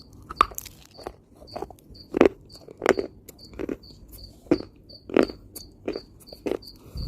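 Crunchy chunks of dried earth being bitten and chewed, with sharp crunches about one to two a second, some louder than others. A cricket chirps steadily in the background, about three chirps a second.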